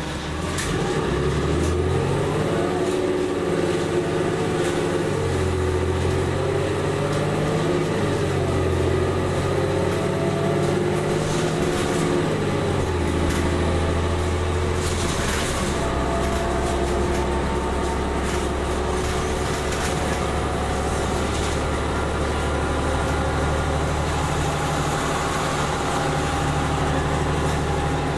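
Cummins ISL-G natural-gas engine of an Orion VII NG CNG transit bus, heard from inside the cabin, pulling away. Its note climbs and steps through several gear changes of the Allison automatic transmission over the first half, then runs at a steady cruise.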